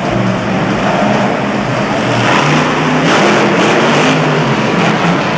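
Monster truck's supercharged V8 engine revving up and down as the truck accelerates across the dirt. It is at its loudest and hardest from about two to four seconds in.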